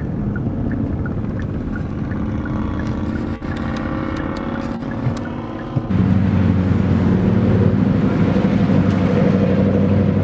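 Vehicle engine running steadily with road noise, heard from a moving vehicle. About six seconds in, it gives way to a louder, deeper engine drone.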